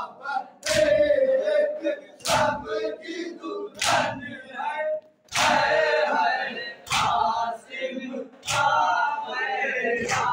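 A group of men chanting a Muharram nauha in unison, striking their chests together in time with it (matam): seven sharp unison slaps, about one every second and a half, with the chant between them.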